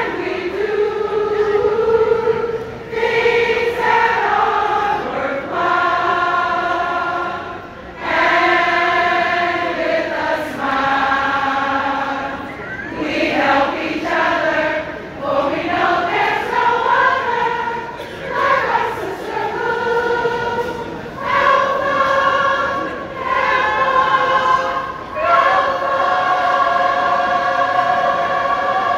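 A large group of women singing together, slow phrases of long-held notes with short breaks between them.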